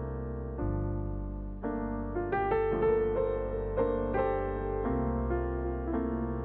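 Soft background piano music: slow sustained chords with a gentle melody of single notes over them.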